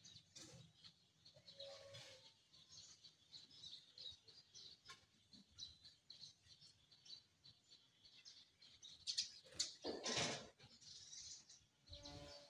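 Tree sparrows chirping in quick, faint twitters while they feed, with a louder burst of wing flapping about ten seconds in.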